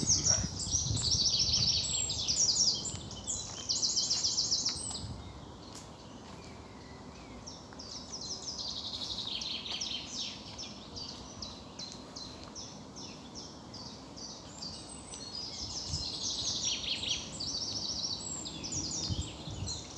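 Songbirds singing in woodland: fast, high trilled phrases come in bursts, with quieter stretches between.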